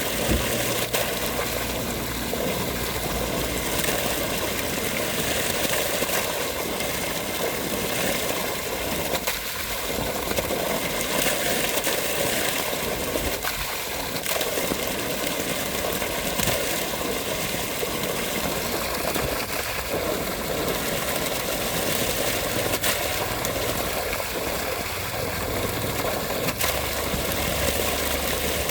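Flowing water rushing steadily, like a stream or small cascade.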